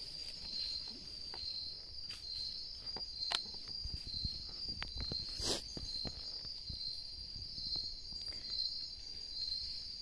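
Steady chorus of night insects trilling, a high pulsing drone, with scattered faint clicks and rustles in the brush; one louder rustle about five and a half seconds in.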